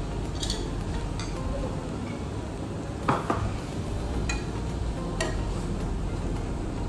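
Metal tongs stirring meat on a hot metal grill pan, clinking against the pan several times, loudest about three seconds in, over a steady sizzle.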